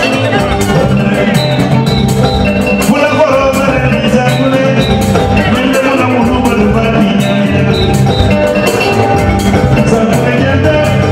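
Live West African band music led by a kora, its plucked strings over drums keeping a steady dance beat.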